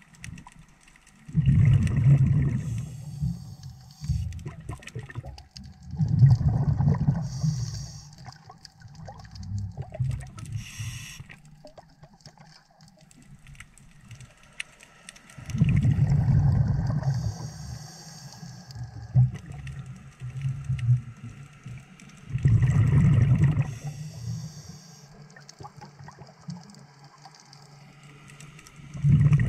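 Scuba diver's regulator breathing heard through the camera's underwater housing: loud, low bursts of exhaled bubbles, each about two seconds long, coming every several seconds. Fainter hissing comes between them.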